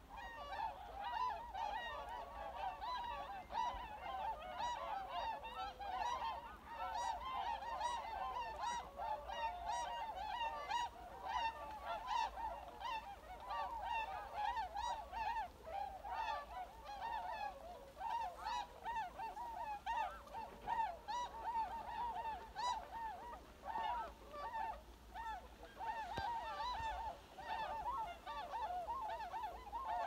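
A large flock of wild swans calling, many overlapping calls at once without a break.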